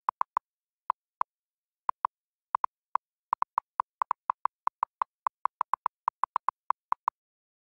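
Electronic countdown-timer ticking sound effect: dozens of short, identical blips, sparse at first and coming faster and more densely from about three seconds in, stopping shortly before the end.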